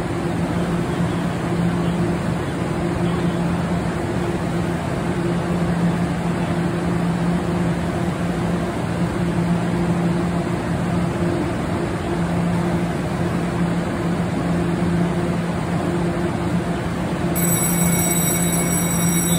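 A Puyuma express TEMU2000 electric train standing at the platform gives off a steady hum and rush, with a low droning tone underneath. Several high steady tones come in near the end.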